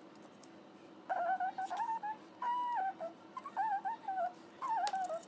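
High-pitched wordless vocal sounds in four short phrases, each wavering and gliding in pitch, starting about a second in.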